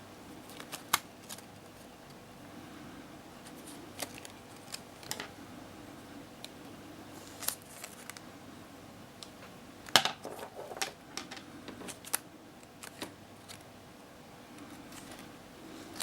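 Irregular sharp clicks and taps of small hard objects, the loudest about a second in and about ten seconds in, over a faint steady hum.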